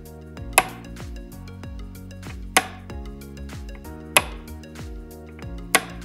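Four sharp clicks of Buster + Punch knurled brass toggle light switches being flipped, over background music with a steady beat.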